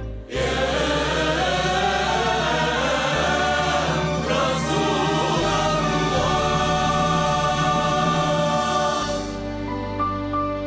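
Orchestra with a string section playing together with a choir. About nine seconds in, the music thins out to softer strings.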